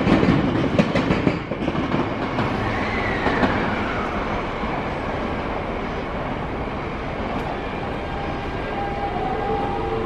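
Electric trains at a station: wheels clatter over rail joints for the first second or so, then a steady rumble with a falling whine about three seconds in. From about eight seconds in, a Seibu 6000 series electric train gives a rising traction-motor whine as it accelerates out of the station.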